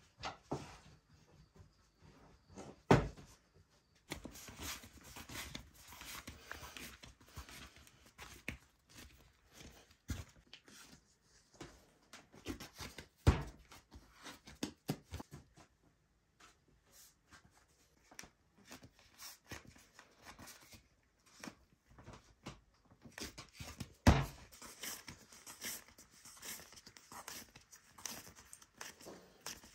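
Hands working bread dough on a wooden board: soft rustles, pats and taps throughout, with three loud thumps about ten seconds apart.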